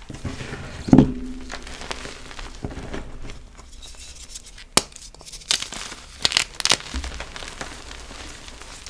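A crispy block of re-formed gym chalk being crushed and crumbled, with crunching and sharp crackles. About a second in there is a louder thump with a brief ringing note, and a cluster of crisp snaps comes around the middle.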